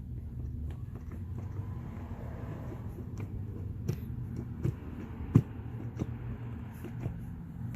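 A car engine idling steadily, with a few sharp knocks over it, the loudest about five and a half seconds in.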